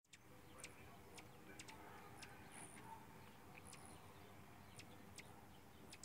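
Faint, short, high chip notes of hummingbirds around feeders, a dozen or so scattered irregularly, over a faint low background noise.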